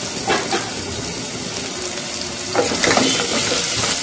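Chopped onions sizzling in hot oil in a pressure cooker. About two and a half seconds in, a wooden spatula starts stirring and scraping them around the pan, and the sizzling gets louder.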